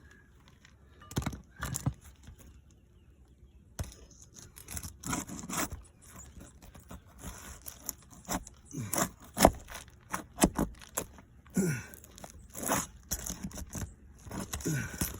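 Sealed asphalt roof shingles being pried up and unsealed by hand, giving irregular scraping and tearing strokes from about a second in: the sealed shingle is ripping as it is lifted to look for nails.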